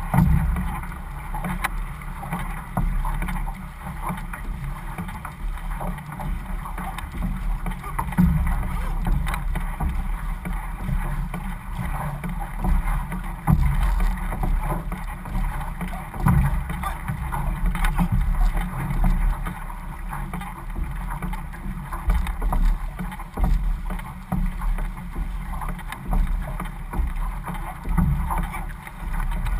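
Outrigger canoe under way with the crew paddling: repeated splashes of paddle blades catching the water and water rushing along the hull, over a steady low rumble of wind on the microphone.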